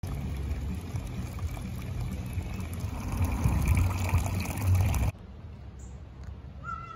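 Water running from a hose spout into a stone basin, trickling and splashing steadily. It cuts off abruptly about five seconds in, leaving a quieter background with one brief high chirp near the end.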